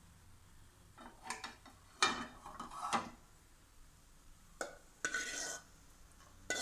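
A metal spoon scraping and stirring in a cooking pan in a few short strokes, as fried cashews in ghee are mixed into chicken fry.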